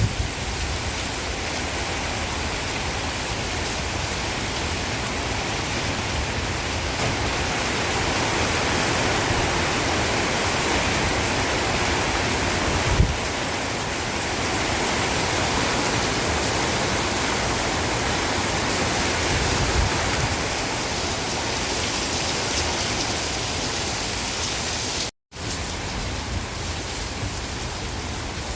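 Heavy rain pouring steadily, a continuous hiss that swells a little in the middle and cuts out for an instant near the end.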